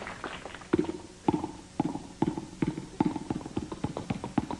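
Vocal imitation of a tennis rally: a run of short mouth-made pops, about two a second and coming closer together toward the end, mimicking the ball being served, bouncing and struck back and forth.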